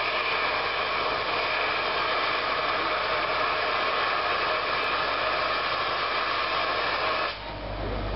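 LMS Stanier Black Five steam locomotive 45305 venting steam: a loud, steady hiss that cuts off suddenly about seven seconds in, leaving a low rumble.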